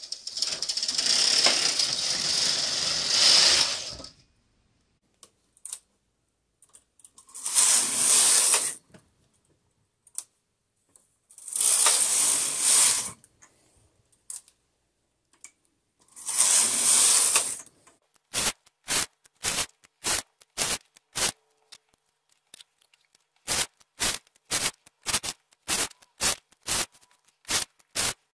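Brother 965i knitting machine carriage pushed across the needle bed four times, a mechanical rattle as it knits each row of a short-row heel. The first pass is long and the next three are short. After that comes a run of short sharp clicks, about two a second.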